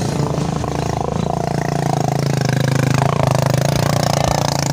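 Motorcycle engine running steadily, getting slightly louder about three seconds in.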